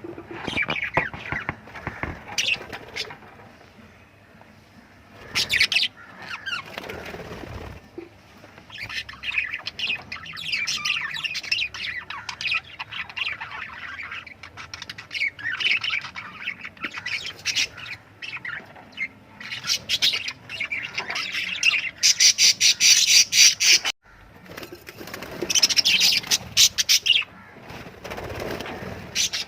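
Lovebirds chirping and chattering in a dense run of short, high calls, broken by a few bursts of rapid fluttering clatter, the loudest about three-quarters of the way through.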